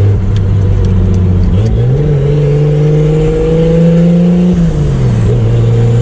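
Turbocharged Chevrolet Opala inline-six engine running under way: steady at first, then about one and a half seconds in the revs rise and keep climbing slowly for about three seconds as the car accelerates, before falling back to a lower steady note near the end.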